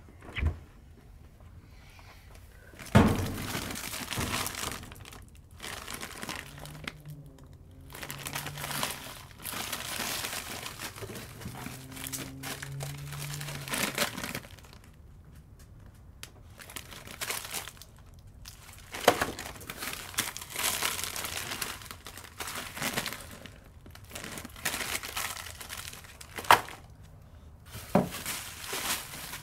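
Close handling noises: crinkling and rustling in irregular bursts, as of packaging being handled, with a few sharp knocks and quieter pauses between.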